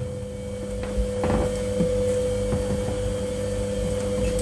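A steady electrical hum on one even pitch, with a few faint knocks and clinks of items being handled about a second in.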